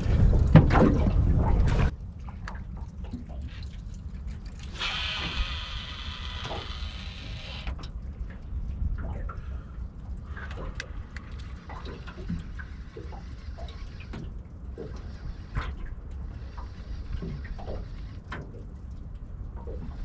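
Small water splashes and lapping against a small metal boat's hull over a steady low wind rumble, with wind loud on the microphone for the first two seconds. About five seconds in, a baitcasting reel's spool whirs for roughly three seconds as the swimbait is cast.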